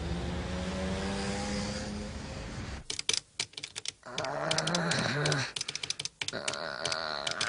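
Anime soundtrack: a steady held drone, then from about three seconds in a rapid run of sharp clicks like typing, with short pitched tones mixed in among them.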